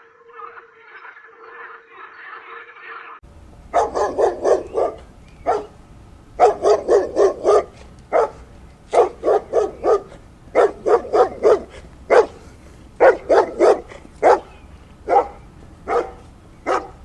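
A dog barking in quick runs of four to six barks, with single barks between the runs. The barking starts abruptly about three seconds in, after a quieter, steady sound with a held tone.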